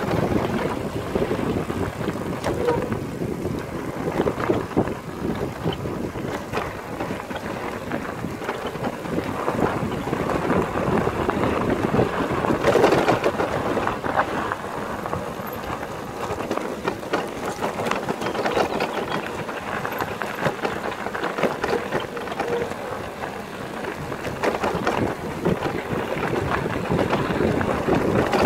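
Wind buffeting the microphone on a moving mountain bike, over the crunch of tyres rolling on loose gravel and the frame and parts rattling with dense small clicks.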